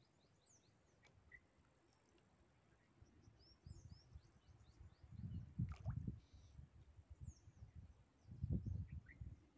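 Small birds chirping faintly in many short, quick calls over quiet open-air ambience. Three bursts of low rumble, about four, six and eight and a half seconds in, are the loudest sounds.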